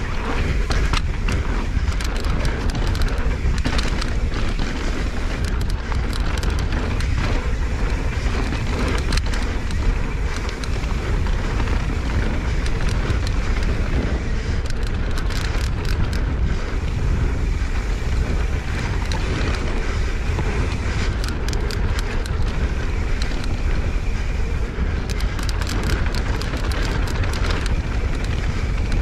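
Wind noise on the microphone as a mountain bike rolls quickly down a dirt singletrack, with tyre noise on the dirt and clusters of rattles and clicks from the bike over rough patches.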